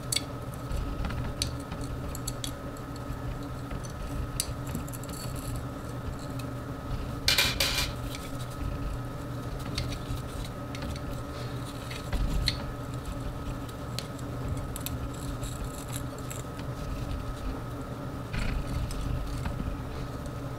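Light clicks and clinks of a black plastic lightstick end cap and a thin bent metal wire being handled as a wrist strap is threaded through the cap, over a steady hum. The loudest rattle comes about seven seconds in, with a few smaller clicks scattered through.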